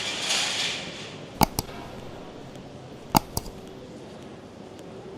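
A hiss that fades out about a second in, then two sharp double clicks about a second and a half apart over a faint steady background.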